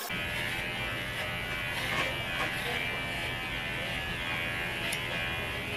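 Cordless electric pet hair clipper buzzing steadily as it trims a shih tzu's coat, starting abruptly at the outset.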